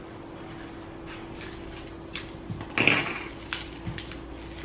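Kitchen handling sounds: a few light knocks and clatters of objects being moved on a counter, the loudest about three seconds in, over a steady low hum.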